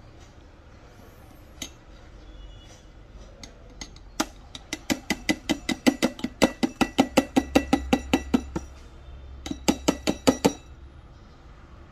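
Rapid metal-on-metal clinks from a coffee tool against a stainless espresso portafilter filled with grounds, about five or six a second, each ringing briefly. A long run starts about four seconds in, then a second short run near the end.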